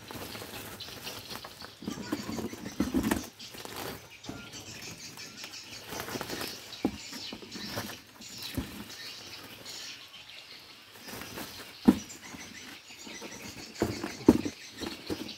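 Woven plastic sack and cardboard box rustling while bunches of green bananas are moved from the box into the sack, with irregular small knocks and a few sharper thumps in the second half.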